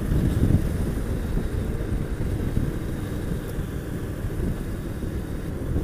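Honda VT750S V-twin motorcycle cruising along an open road, its engine rumble mixed with wind buffeting on the microphone, steady throughout.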